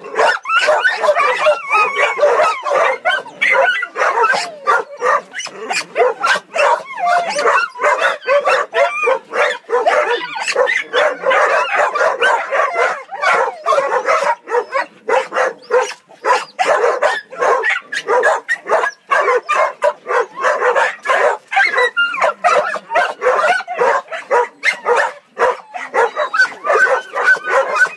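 Several shelter dogs in kennel pens barking and yipping at once, the barks overlapping with hardly a pause.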